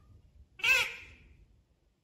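Pet ring-necked parakeet giving one short call about half a second in.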